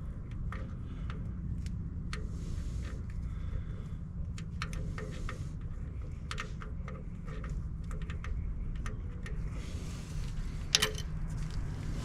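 Scattered light metallic clicks and clinks of bolts and hand tools being handled while fitting a starter motor, with a sharper clink near the end and brief rustling. A steady low rumble runs underneath.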